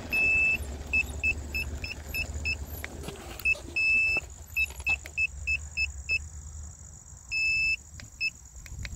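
iSinwheel S9 Max electric scooter's buzzer beeping while the scooter is rebooted after cutting out: quick short high beeps about three a second, with three longer beeps, at the start, about four seconds in and near the end. A low rumble underneath fades out about halfway through.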